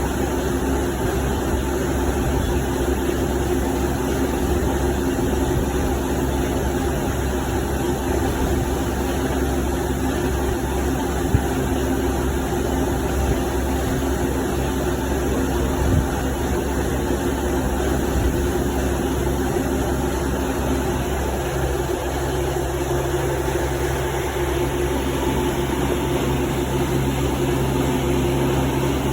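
Machine tool running steadily while machining a 0.4 mm slot in a copper workpiece: a constant low hum made of several steady tones, with an extra low tone joining about two-thirds of the way through and a couple of faint clicks.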